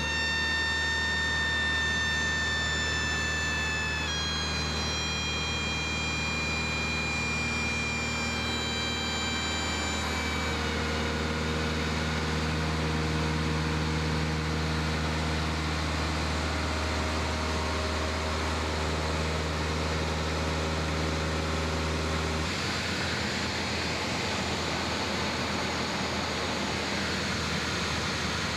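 Engine and propeller drone of a Cessna 152 in level flight, heard inside the cabin: a steady, loud low drone with rushing noise above it. Faint high tones step down in pitch twice in the first third, and the drone's low end changes abruptly about two-thirds of the way through.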